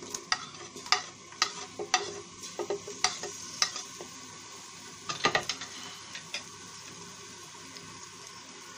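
Sliced onions going into hot cooking oil in a metal pot and frying with a steady sizzle. Sharp clicks and taps come through the first few seconds and again about five seconds in as the pieces land and shift.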